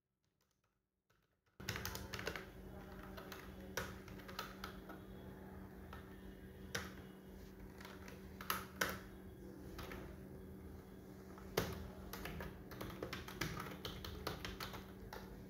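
Typing on a computer keyboard: a run of irregular key clicks, a few of them louder, starting about a second and a half in after a brief silence, over a faint steady low hum.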